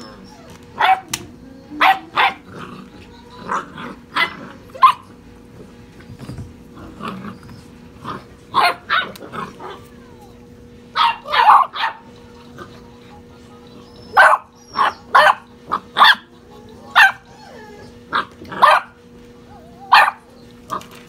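Young European basset hound puppies barking during play: an irregular string of short, sharp puppy barks, some coming in quick pairs.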